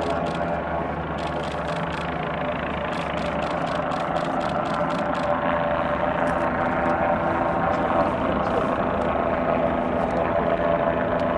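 Boeing 787-9 Dreamliner's twin turbofan engines at takeoff thrust as the jet climbs away after liftoff: a steady rumble with several held whining tones over it.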